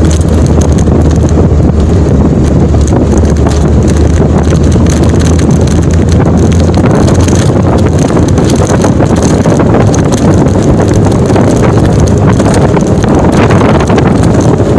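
Vehicle cruising on a concrete highway, heard from inside: steady road and wind noise over a low engine drone that eases about halfway through.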